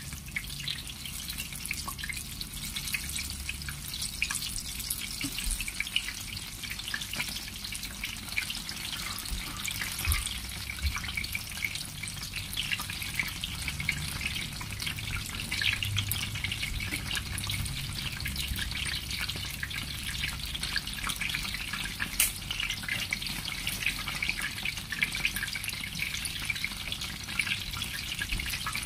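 Batter-coated meat-stuffed chilies deep-frying in a wok of hot oil: steady sizzling with many tiny crackles and one sharper pop about two-thirds of the way through.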